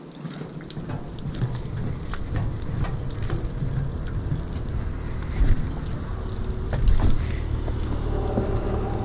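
Footsteps, clicks and knocks on a dock gangway and boat deck over a low steady rumble that starts about half a second in, with two louder thumps around the middle.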